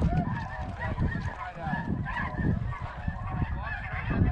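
A large flock of snow geese calling, with many short honks overlapping into a continuous chorus over a low rumble.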